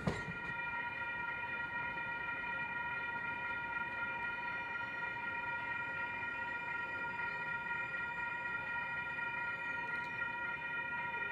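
Railroad grade crossing warning bells sounding, a steady high chord of several tones that holds without change.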